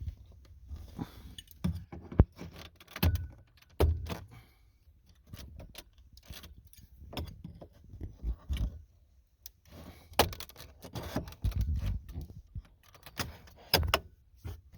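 A pry tool working a plastic door-armrest window switch trim panel loose: a run of irregular clicks, taps and short scrapes of plastic, with a sharp click about two seconds in.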